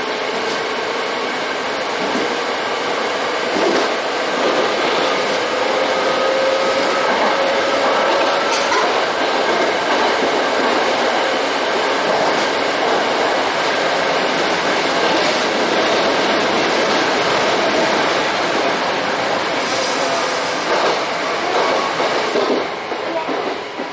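Electric commuter train running through a tunnel, heard from the driving cab: a steady rolling rumble of wheels on rail with a whine that slowly shifts in pitch and a few sharp clicks. The noise drops near the end as the train leaves the tunnel.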